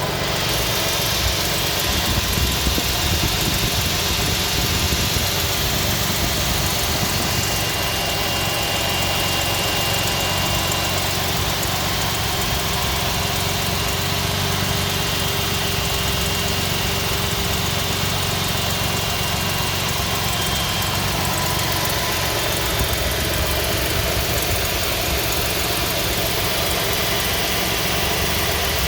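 Jaguar E-Type engine running steadily, with a thin, high squeal from the belt at the water pump. The squeal comes in above about 2400 rpm even though the belt alignment is correct.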